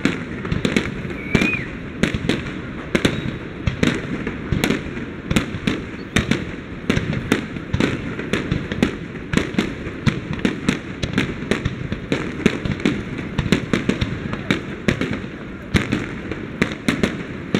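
Aerial fireworks display: a continuous barrage of bangs and crackles from bursting shells, many reports a second.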